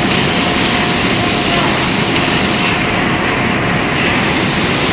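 Puffed-snack food extruder line running at full production: a loud, steady machine noise with a hiss and a faint steady whine, unchanging throughout.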